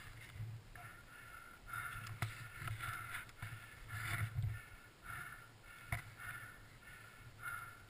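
Rhythmic rustling and crunching of deep snow and branches, a stroke every half second to second, as a rider works by hand to free a snowmobile stuck in powder. Two sharp clicks stand out, one about two seconds in and one near six seconds.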